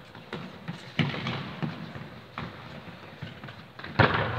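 Football being kicked on a hard sports-hall floor, with scattered knocks of ball and feet echoing in the large hall, then a much louder hard kick about four seconds in.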